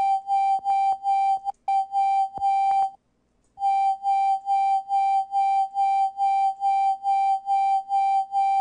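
A single high synthesizer note, a software synth patch, repeating in a loop, pulsing on and off about three times a second with a brief break about three seconds in. A few faint clicks sound over it in the first seconds.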